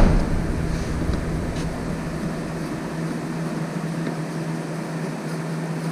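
A heavy thump right at the start, then a steady low mechanical hum.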